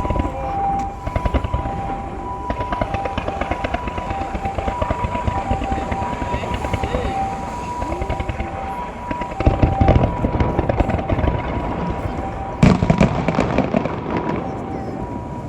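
Fireworks going off: continuous crackling and popping, with heavier bursts about nine and a half seconds in and a sharp, loud bang about twelve and a half seconds in. Music plays alongside.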